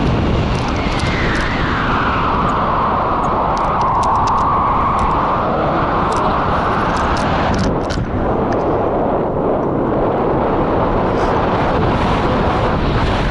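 Wind rushing over the microphone of a selfie-stick camera on a tandem paraglider in flight: a loud, steady, rumbling noise. A higher whistling band falls in pitch over the first few seconds.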